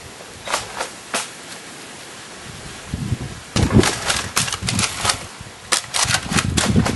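A series of sharp clicks and knocks: three spaced ones in the first second or so, then a rapid cluster of clicks over dull thuds from about three and a half seconds on.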